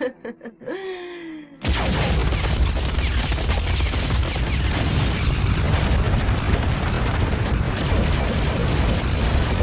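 Animated sci-fi sound effects: a few short clicks and rising electronic tones, then, about a second and a half in, a sudden explosion that carries on as a continuous heavy rumble with crackling.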